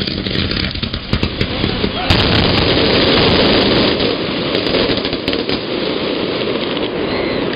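Fireworks crackling and popping in dense, rapid strings. The sound swells louder from about two seconds in for a couple of seconds.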